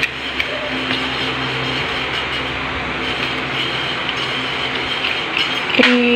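Steady rushing background noise, with a few faint clicks. A short, sharp pitched sound begins near the end.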